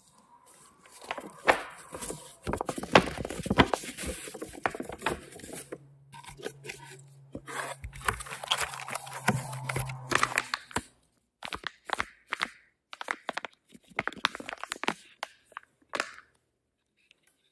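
Kitchen foley: irregular clusters of sharp knocks, clicks and crackling from kitchen utensils being handled. A low steady hum runs for a few seconds in the middle.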